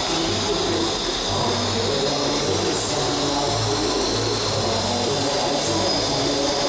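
Steady, even roar and hiss while a TIG welding arc burns on a pipe joint, with no breaks or starts.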